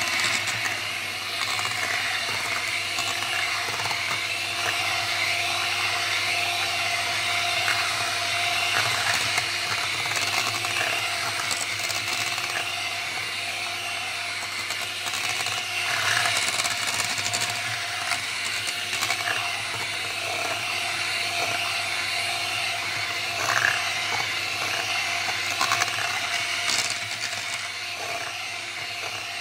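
Electric hand mixer running steadily, its beaters working flour into cake batter in a stainless steel bowl. A few brief knocks come partway through and near the end.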